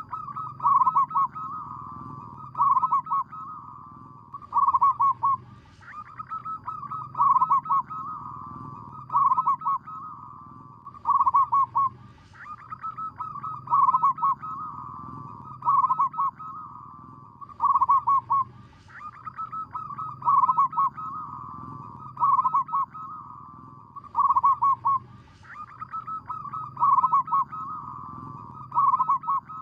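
Zebra dove (perkutut) singing its staccato, trilled cooing song over and over. The phrase repeats very regularly, about every six and a half seconds, with its loudest notes about two seconds apart.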